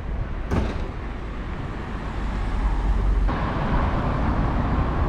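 Street traffic: cars and a van driving past, the traffic noise getting fuller and louder past the middle, over a steady low rumble. A brief knock comes about half a second in.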